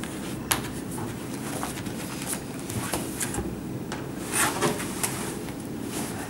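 A laptop lid clicks shut about half a second in, followed by light handling clicks. Around four and a half seconds in, a short burst of rustling and scraping as a jacket is lifted off a chair back.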